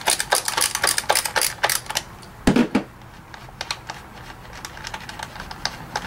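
Ratchet with a 5/16 socket clicking rapidly as the ignition coil hold-down bolt on a 2009 Ford Focus engine is loosened, with a single louder knock about two and a half seconds in and sparser clicks after it.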